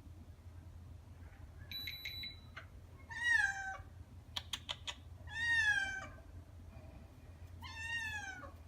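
Domestic cat meowing three times, each call long and falling in pitch, with a few sharp clicks between the first and second meow.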